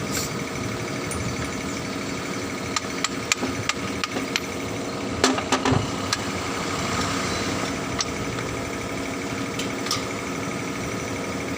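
A steady engine hum with a series of sharp knocks over it: a quick run of them about three seconds in, a louder few near the middle, and one or two more near the end.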